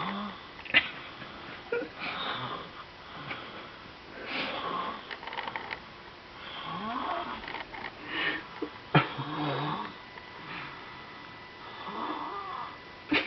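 A baby snoring, with a noisy breath about every two to three seconds. Two sharp clicks, about a second in and about nine seconds in, are the loudest sounds.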